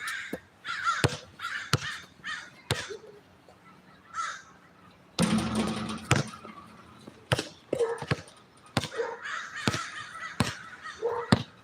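A bird giving harsh, repeated calls many times over, with sharp knocks scattered among them and a louder noisy stretch about five seconds in.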